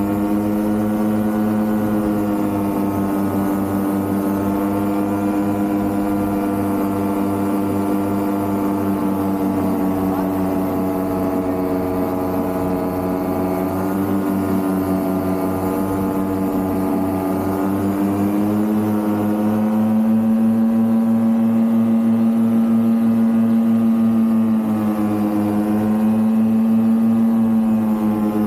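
Vittorazi Cosmos 300 two-stroke paramotor engine and propeller running steadily at cruise in flight. The pitch eases slightly and then picks up with a rise in loudness about two-thirds of the way through, dips briefly, and comes back up near the end as the throttle is worked.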